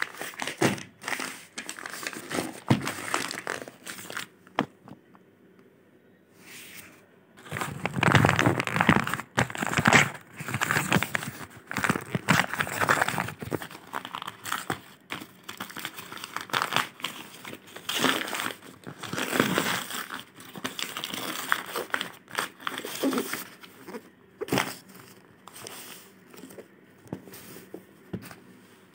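Brown kraft-paper courier mailer being torn open and crumpled by hand, in irregular bouts of crinkling and ripping with a short lull about five seconds in; it tails off near the end.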